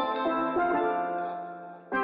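Background instrumental music of ringing melodic notes that die away near the end, with a new phrase starting right at the close.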